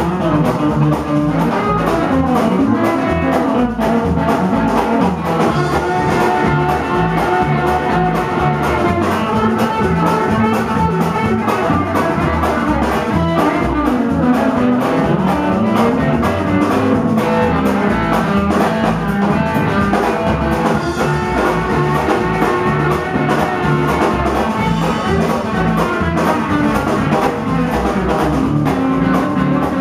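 Small band playing live: upright double bass and drum kit keeping a steady beat, with a melody carried over them.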